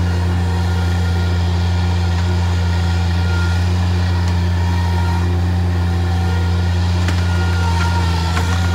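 Skid steer engine running steadily at a constant low hum, with a few light knocks near the end.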